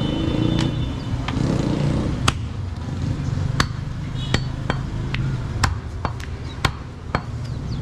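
A heavy cleaver chopping goat meat against a wooden chopping block, cutting it into smaller pieces. About eight sharp, separate chops begin about two seconds in, roughly one every half second to second, over a steady low rumble of background noise.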